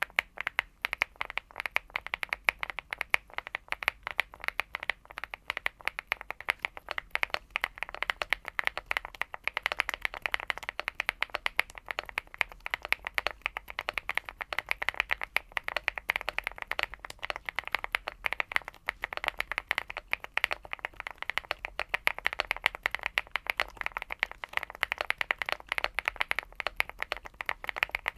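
Steady, fast typing on a Leobog Hi75 aluminium 75% mechanical keyboard with MMD Vivian linear switches: a dense, unbroken stream of short key clicks.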